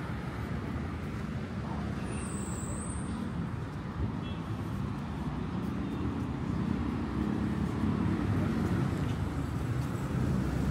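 Road traffic on a multi-lane city avenue: a steady rumble of car engines and tyres that swells as vehicles pass in the second half. A brief high-pitched squeal cuts through about two seconds in.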